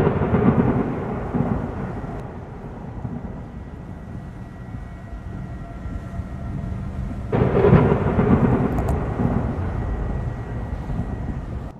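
Thunder during a severe storm: two rolling claps, one at the start and one about seven seconds in, each rumbling low and fading over a few seconds.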